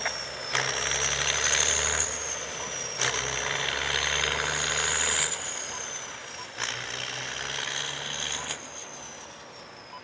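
Freight train rolling past with a steady rumble and a high whine that slowly rises, then drops, several times over. Sharp clanks come about five times.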